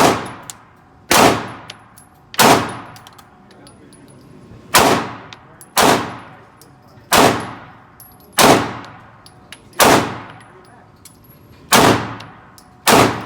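Glock 17 9mm pistol fired in a slow, steady string of about ten single shots, roughly one a second or a little slower, with a longer pause about a third of the way through. Each shot rings out and trails off. Faint metallic clinks fall between the shots.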